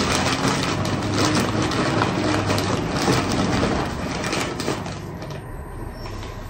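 Small lumps of charcoal being dropped and pushed in by hand around the base of a potted anthurium, a dense clinking and crunching that is busiest in the first few seconds and then eases off.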